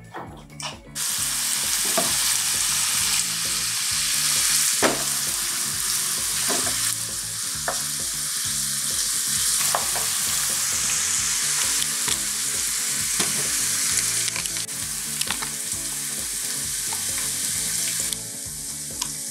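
Sliced artichoke sizzling in olive oil in a frying pan over medium heat; the sizzle starts about a second in and holds steady. A wooden spoon stirring the pan adds occasional scrapes and taps.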